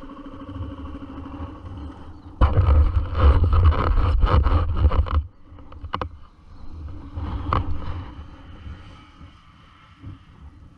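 Dirt bike engine running steadily at low revs. A loud, rough scraping rumble breaks in for about three seconds, cuts off suddenly, and is followed by a couple of sharp knocks.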